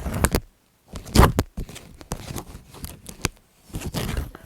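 Paper and stationery being handled up close for a journal page: a run of separate rustling, crinkling and tearing or snipping noises, the loudest about a second in.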